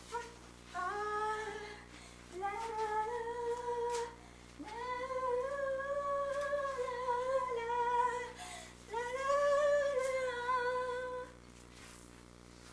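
A woman's voice humming long wordless notes in four drawn-out phrases, each held and gently bending in pitch, with short pauses between them.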